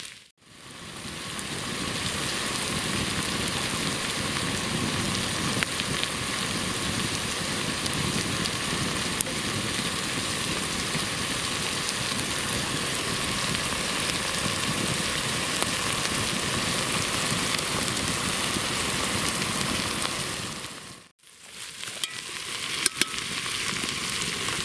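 Chopped onions frying in rendered bacon fat in a pot over a campfire: a steady sizzle as the onions soften, fading out briefly near the start and again about 21 seconds in. A couple of sharp clicks near the end.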